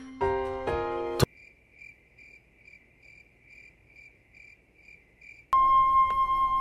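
Cricket chirping faintly and evenly, about two and a half chirps a second. A short musical phrase cuts off about a second in, and music with a held high string note comes in near the end.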